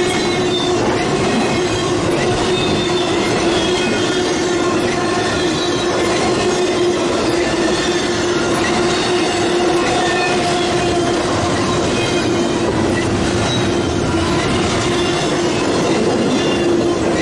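Intermodal freight train's container and trailer cars rolling past, a steady rumble of steel wheels on rail with a continuous tone held over it.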